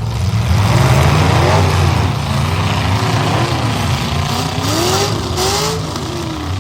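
Demolition derby trucks' engines revving up and down over a heavy low rumble, several revs rising and falling in turn. Two short, bright noisy bursts come about five seconds in.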